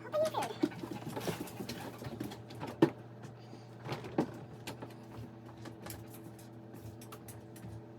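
A steady low hum runs throughout, broken by a short falling squeak at the start and a few sharp knocks about three and four seconds in.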